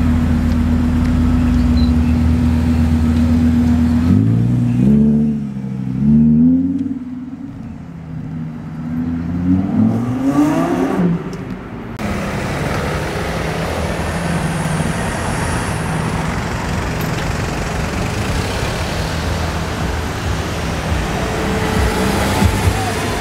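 Audi R8's V10 engine running steadily, then revving up through the gears as the car pulls away, its pitch rising in repeated sweeps. About twelve seconds in the sound cuts abruptly to steady street-traffic engine noise.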